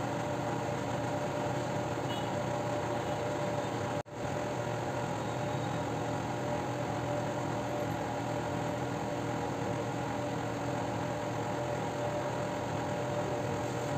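A steady machine hum with a few held tones, broken for an instant about four seconds in.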